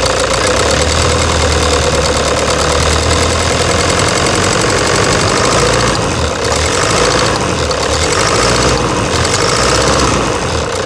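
Toyota Hilux turbo-diesel engine idling with a loud knock, the sign of a stuck, faulty fuel injector. The low rumble shifts about six seconds in.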